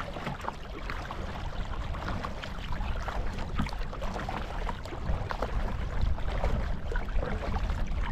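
Water lapping and splashing in many small, irregular splashes against a sit-on-top kayak's hull, over a steady low rumble of wind on the microphone.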